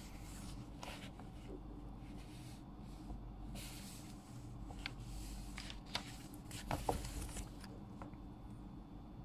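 Paper rustling as a sheet is handled, and a pen scratching on paper, with a few short clicks that are loudest about seven seconds in. A steady low hum runs underneath.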